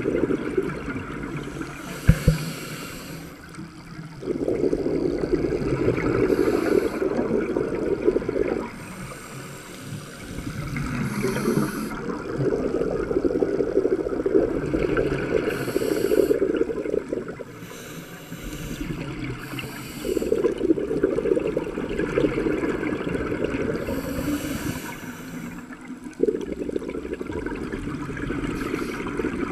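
Scuba diver breathing through a regulator underwater: slow breaths every few seconds, each a long rushing hiss, with shorter hissing bursts of exhaled bubbles between them.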